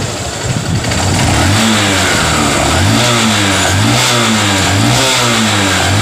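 Honda CB Shine's 125 cc single-cylinder four-stroke engine being revved in quick throttle blips, about one a second, each one a rise and fall in pitch, after about a second and a half of idle. It runs smoothly with no abnormal noise, which the mechanic takes as a sign that the engine noise is cured now that oil is reaching the top end properly.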